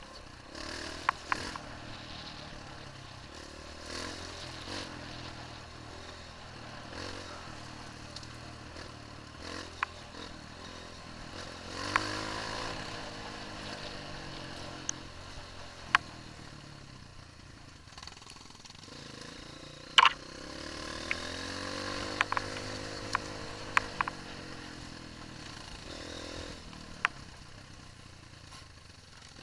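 Dirt bike's single-cylinder four-stroke engine running along a rough trail, revs rising and falling with the throttle. Sharp knocks and rattles come from the bike jolting over ruts, the loudest about two-thirds of the way through.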